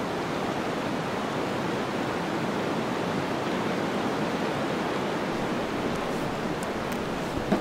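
Wind blowing steadily through pine trees, an even rushing noise with no gusts or lulls; a soft knock near the end.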